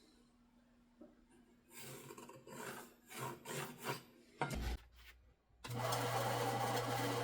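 Several scraping, rubbing strokes of wood being handled and slid on a work surface, then a knock, and about two-thirds of the way through a bandsaw motor switched on and running with a steady hum.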